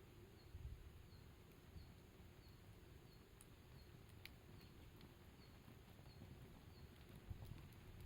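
Faint wood campfire burning: a few sharp, isolated crackles and pops over a low rumble. A faint, high chirp repeats steadily about every two-thirds of a second.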